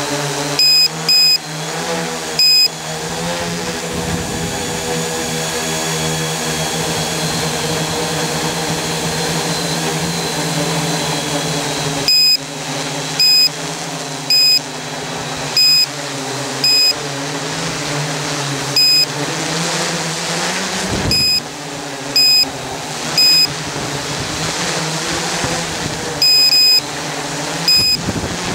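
Electric motors and propellers of an Oktokopter XL octocopter whirring steadily in flight, heard from on board, the pitch wavering as the motor speeds change. Short, loud electronic beeps break in at irregular intervals, a few near the start and many from the middle on; they are the loudest sounds.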